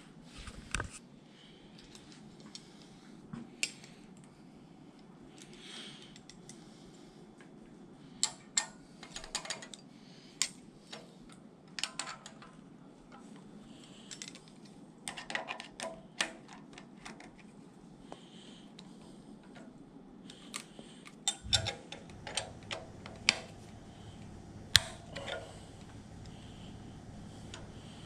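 Scattered sharp metallic clicks and ticks of hand tools working the aluminium rocker arms and their adjusting lock nuts, with one click louder than the rest near the end. This is valve lash being set on a small-block Chevy 350.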